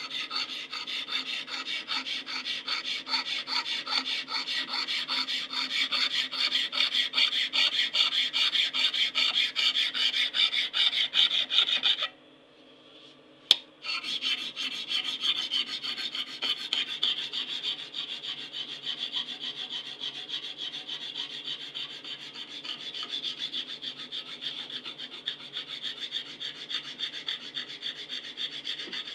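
Hand file rasping across the edge of a steel knife blank in quick repeated strokes. A little before halfway it stops for about a second and a half, and one sharp click ends the pause. The strokes then resume more softly.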